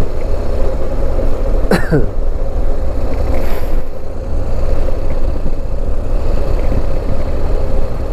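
BMW motorcycle engine running at a steady cruise, with a heavy low wind rumble on the microphone. A brief falling tone sweeps down about two seconds in.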